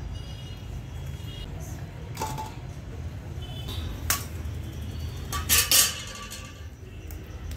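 Eggs being cracked by hand into a steel bowl: a few sharp cracking taps, the loudest pair about five and a half seconds in, over a steady low hum.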